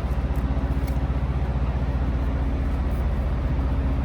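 An engine idling steadily: a low, evenly throbbing drone.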